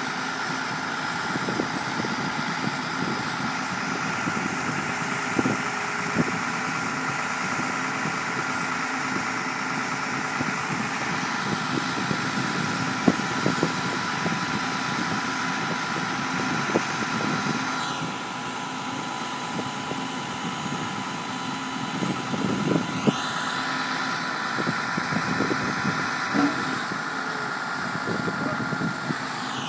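Diesel engine of a pile-driving rig running steadily, with scattered irregular knocks and clanks. It drops off about 18 s in and builds back up a few seconds later.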